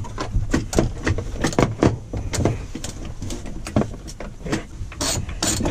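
Hand ratchet clicking in quick runs as it loosens a seat-belt mounting bolt, with a few sharper metallic clinks near the end.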